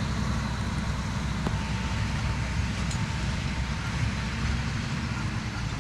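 Tractor engine and John Deere round baler running steadily while baling hay: a dense low rumble with a hiss over it.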